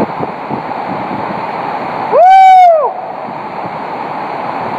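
Hurricane wind and heavy rain rushing steadily. About two seconds in, a loud high tone rises, holds for about half a second and falls away.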